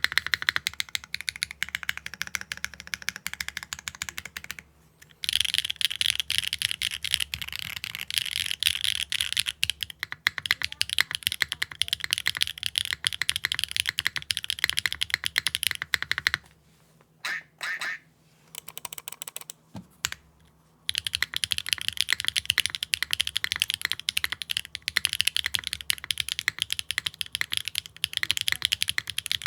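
Steady typing on a mechanical keyboard with HMX Yogurt factory-lubed linear switches in a Neo65 Core Plus case, with a carbon fibre plate, no foam and GMK keycaps. The typing stops briefly about five seconds in, then goes quiet for about four seconds in the middle apart from a few single keystrokes, before picking up again.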